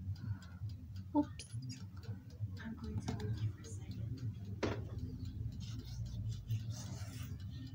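Fingers patting and rubbing liquid over risen bread dough on a metal baking tray: soft, irregular ticks and clicks, with a sharper knock about a second in and another near five seconds, over a steady low hum.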